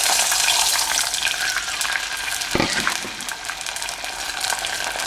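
Tamarind extract sizzling as it is poured into hot oil in a pan, a dense hiss that eases a little after the first couple of seconds. A single dull knock about two and a half seconds in.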